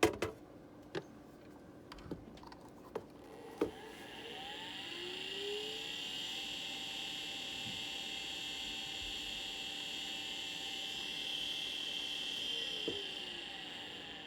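A few clicks, then an old Maxtor IDE hard drive's spindle motor spins up with a rising whine and runs with a steady whir and a loud high hiss from its worn spindle bearing. Near the end the pitch falls and the sound fades as the platters spin down.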